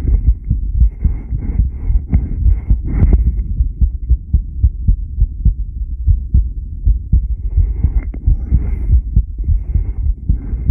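Recorded human heartbeat: a dense run of low, repeated thumps. A rushing hiss lies over it for the first few seconds, drops away, and returns about seven and a half seconds in.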